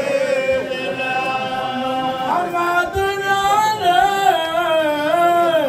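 Men chanting a devotional mawlid song, led by a voice amplified through a microphone, in long held notes that slide and waver in pitch. A second, lower voice joins about two seconds in.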